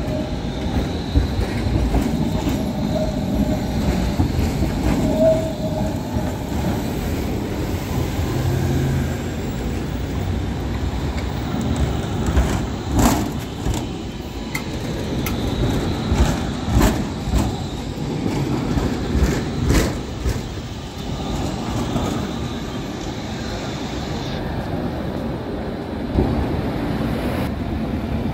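Končar TMK 2200 low-floor tram passing at street level: a steady rumble of wheels on rail, with a run of sharp clacks between about 12 and 21 seconds in as the wheels cross the track joints and crossings.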